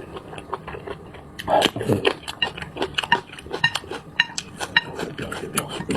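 Eating utensils clicking and scraping against a bowl of noodles: a quick, uneven run of short ringing clinks, with eating sounds in between.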